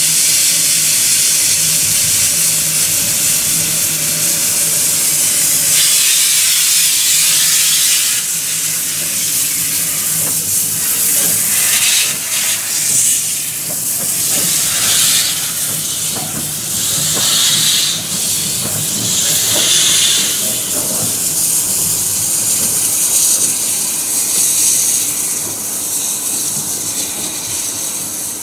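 Caledonian Railway No. 419, a 0-4-4 tank steam locomotive, hissing loudly from its open cylinder drain cocks, then moving off with slow puffs of steam every second or two. The sound fades near the end as it draws away.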